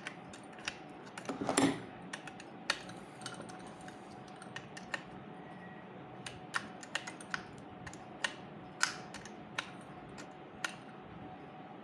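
Irregular clicks and light knocks of a tool tightening the screw that closes up a ceiling fan's housing, with a brief busier flurry about a second and a half in.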